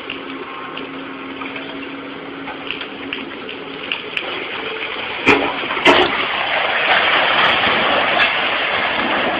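Machinery running with a steady rushing noise and a low hum. Two sharp knocks come about five and six seconds in, and the rushing grows louder after them.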